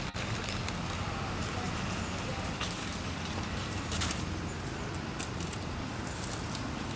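Steady low outdoor background rumble with a few faint clicks scattered through it.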